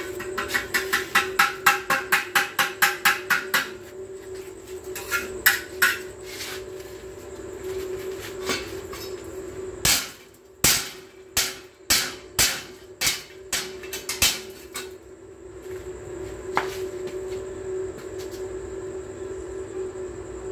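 Hand tool striking hollow clay bricks during bricklaying: a fast run of light taps, about five a second, for the first few seconds, then a handful more, then slower, harder knocks about a second apart around the middle. A steady hum runs underneath.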